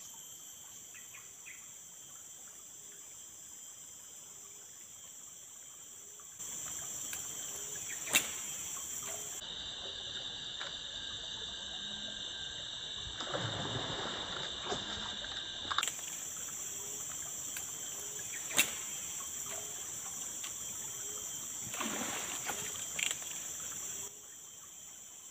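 Steady chorus of forest insects: sustained high buzzing tones at several pitches, its mix changing abruptly a few times. A couple of sharp clicks and a few brief splash-like swishes stand out above it.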